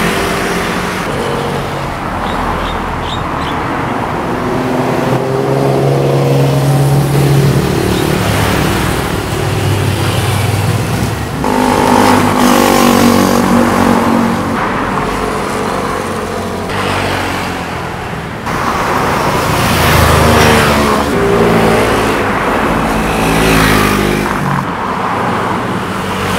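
Motorcycles and scooters passing by one after another, their engines rising and falling in pitch as each one goes past. The sound changes abruptly a few times where separate passes are cut together.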